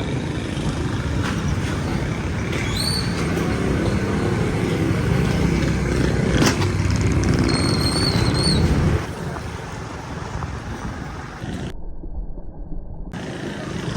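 Road traffic noise: a dense, steady vehicle rumble that drops off sharply about nine seconds in. Two short high-pitched tones sound about three and eight seconds in.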